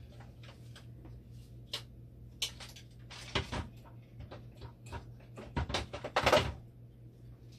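Scattered light clicks and knocks of plastic and metal parts being handled and fitted inside a dialysis machine's open hydraulic section, with two louder rattling clusters about three and a half and six seconds in, over a low steady hum.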